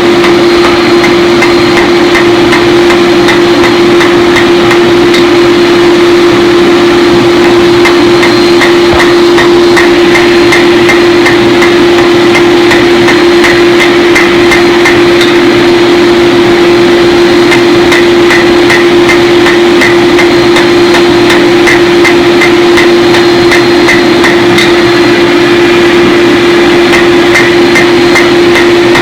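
Hammer blows forging 4142 chromoly steel for a tomahawk head, in irregular runs of several strikes a second with a short metallic ring on each. A loud steady hum runs underneath throughout.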